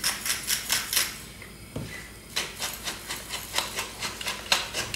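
Hand-twisted salt and pepper mills grinding over a bowl: a quick run of gritty ratcheting clicks, about six a second, that pauses about a second in, then another slower run of clicks.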